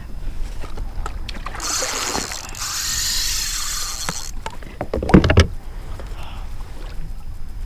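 King mackerel at the side of a fishing kayak during the gaffing. A few seconds of rushing, splashing noise are followed, about five seconds in, by a loud cluster of knocks against the kayak hull.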